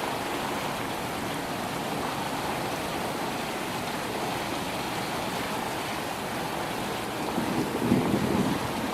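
Steady rain in a thunderstorm, an even hiss. Near the end a louder, lower swell comes in for about a second and a half.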